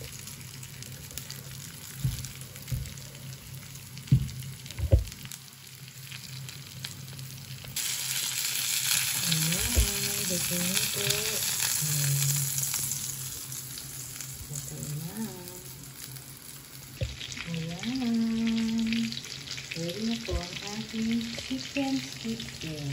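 Breaded chicken schnitzel sizzling as it shallow-fries in hot olive oil in a pan, with a few sharp knocks of a spatula against the pan in the first five seconds. The sizzle gets louder about eight seconds in and again near the end.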